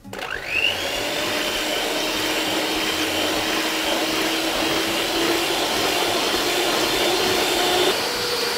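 Handheld electric mixer switched on, spinning up with a rising whine over about half a second, then running steadily as its twin beaters whisk egg whites to a foam in a stainless steel bowl.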